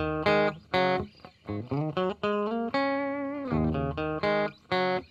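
Intro theme music: a lead melody of separate notes, several sliding up into pitch, with one longer held note near the middle that falls away.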